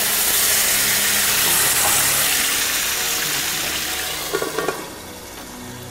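White wine poured into a hot frying pan of sea bass, hissing and sizzling loudly as it boils off. About four and a half seconds in, a metal lid clinks onto the pan and the sizzle turns much quieter.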